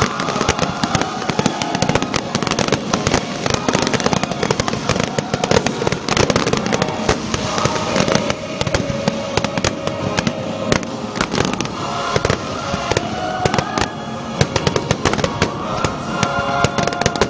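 Fireworks finale: a dense, continuous barrage of aerial shell bursts and crackling, the bangs packed closely together without a break.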